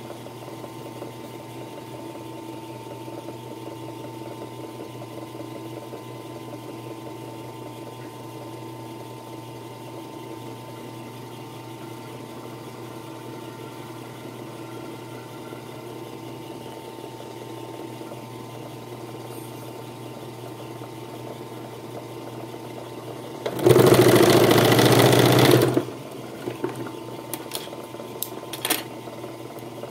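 Puritan three-needle industrial sewing machine with its motor humming steadily, then running at speed for about two seconds, stitching through leather, just after being threaded. A few sharp clicks follow near the end.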